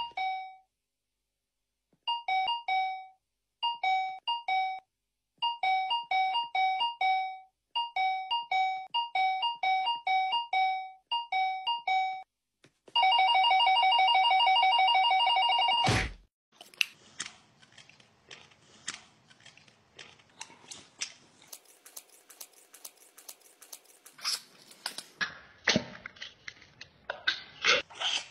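Short electronic beep tones in quick runs of two to five, like a ringtone melody, then about three seconds of steady rapid phone-like ringing that cuts off sharply. After that comes faint, irregular crackling and clicking, like close-up ASMR crunching.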